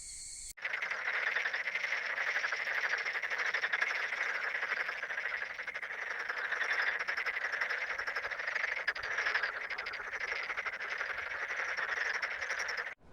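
Frog chorus: many frogs croaking together in a dense, rapid, continuous trilling. It cuts in abruptly about half a second in and stops sharply just before the end, as an added ambient sound effect would.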